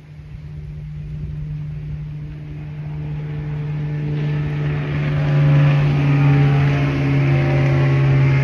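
Motorboat engine passing by on the lake, a steady hum that grows much louder over several seconds and drops slightly in pitch near the end as it goes past.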